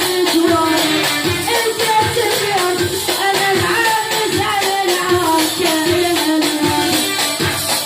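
Arabic song playing: a melody over a steady, quick beat with tambourine-like hand percussion.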